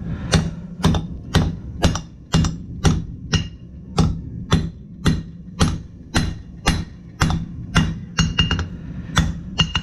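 Hand hammer striking hot steel on an anvil in a steady forging rhythm, about two blows a second. Some blows leave a short, high anvil ring, and a steady low hum runs underneath.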